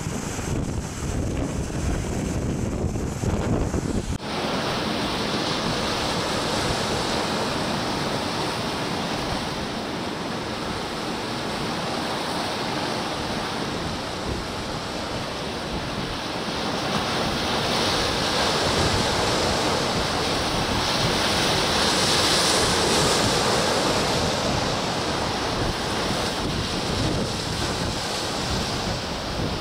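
Storm-driven sea: waves breaking and rushing, with wind buffeting the microphone as a low rumble for the first few seconds. About four seconds in the sound changes abruptly to a steady wash of rough water and wind, which swells louder past the middle.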